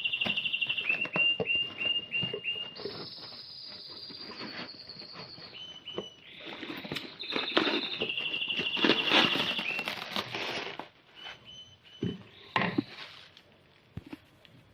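A small songbird singing in a long series of rapid trills and short falling chirps. Crinkling cellophane is handled about halfway through.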